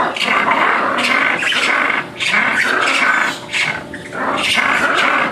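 Lemurs giving loud, harsh, raucous calls, broken by two short pauses.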